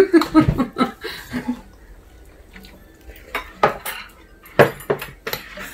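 Metal ladle and spoons clinking against ceramic bowls and an earthenware pot as broth is served, with a few separate sharp clinks in the second half.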